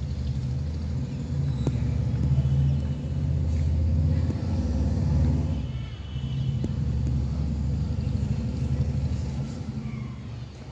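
A low rumbling noise that swells and eases, dipping briefly about six seconds in.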